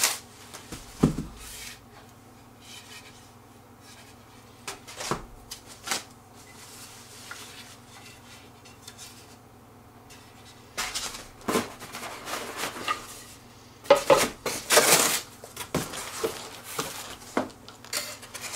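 Wooden table parts and cardboard packaging being handled during unboxing: scattered knocks and clatter of wood pieces, with scraping and rustling of cardboard, sparse at first and busiest in the last several seconds.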